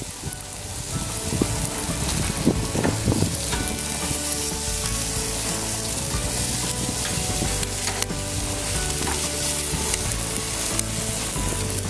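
Boneless chicken thighs sizzling steadily on a hot grill grate, with a few sharp clicks from metal tongs as pieces are lifted and turned.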